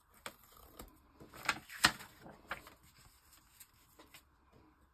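Paper folios and small items being handled and set down on a tabletop: a string of light taps and knocks with some paper rustle, the loudest knock about two seconds in.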